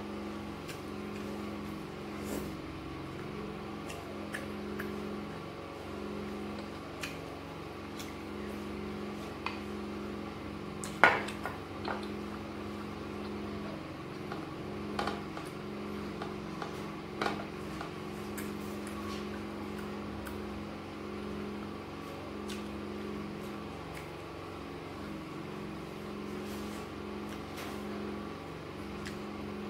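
Eating sounds: a metal spoon clinking now and then against a glass bowl of soaked gari, and fingers picking at dried fish, heard as scattered sharp clicks and taps, the loudest about eleven seconds in. A steady low hum runs underneath.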